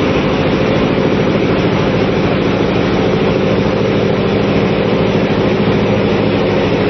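Loud, steady din of diesel machinery running in a small oil tanker's engine room: an even low hum with a wide hiss over it, unchanging throughout.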